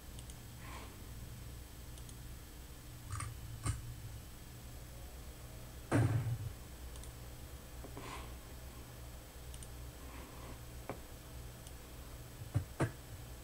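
Scattered computer mouse clicks and small desk noises over a low steady hum, with one louder dull thump about six seconds in and a quick pair of clicks near the end.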